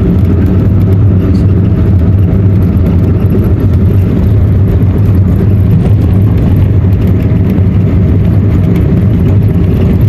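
Loud, steady low rumble of a car driving along a road, road and wind noise heard from inside the moving car.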